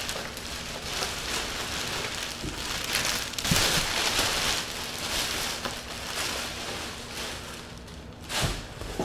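Clear plastic sheeting crinkling and rustling in surges as it is pulled up and off a tall cabinet and bundled up, with a dull thump about three and a half seconds in and another near the end.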